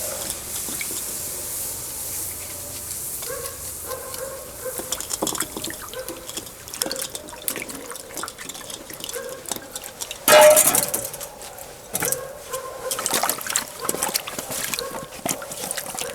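Water pouring and splashing among short knocks and clinks, with one louder burst about ten seconds in.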